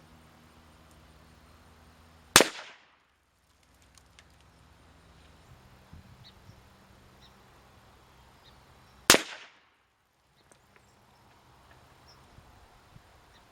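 Two rifle shots from a Ruger American Rimfire in .22 WMR firing CCI Maxi-Mag +V, about seven seconds apart. Each is a single sharp crack with a short echo tail, with a few faint clicks in between.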